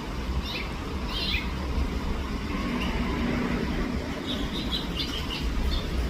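House finches chirping in short calls: a couple about half a second and a second in, then a quick run of chirps near the end, over a steady low rumble.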